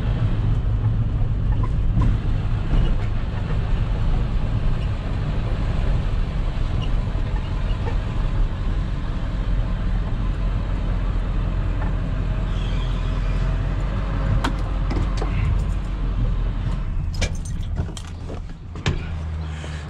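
Car driving: a steady low engine and road rumble. About three seconds before the end it drops to a quieter level, with several sharp clicks and knocks.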